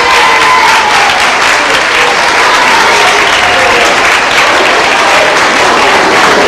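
Sustained applause: many people clapping their hands at once, steady and dense throughout.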